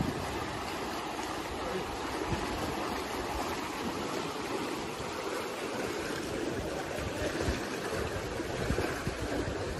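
Fast-flowing floodwater rushing along a flooded street: a steady rushing noise.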